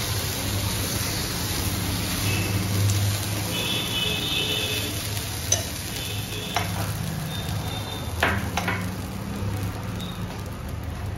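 Semolina pancake batter sizzling softly in oil on a hot nonstick griddle as it cooks, over a steady low hum. A few light clicks come in the second half.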